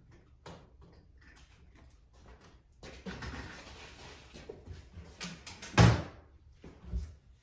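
Folded paper draw tickets rustling and shuffling as a hand stirs through them inside a glass display case, with small clicks of handling. A loud knock near the end, the case's door being shut.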